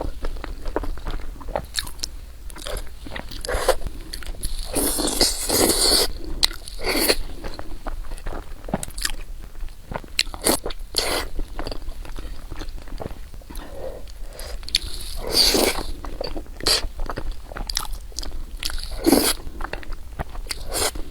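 A person eating rice and Chinese noodles close to the microphone: irregular chewing and biting with crisp clicks, and a few longer, louder mouth sounds about five and fifteen seconds in.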